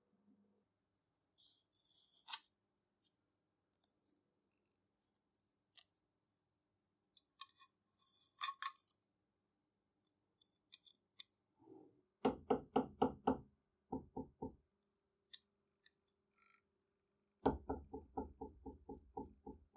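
Small hammer tapping, about six quick light taps a second, peening a brass pin on the lamp door held in a vise, in a run near the middle and again near the end. Before that, faint clicks and clinks of small metal parts being handled and fitted.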